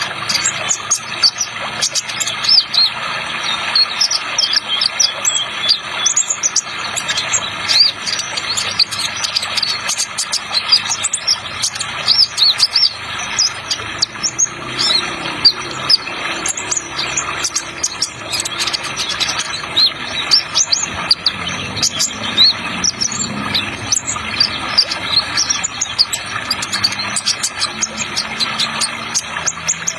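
Sunbird singing a fast, unbroken run of high, squeaky chirps and trills, over a steady rushing water sound effect.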